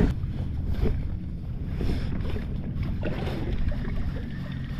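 Hangkai 12 hp outboard motor running steadily, pushing a small boat along, with water washing past the hull.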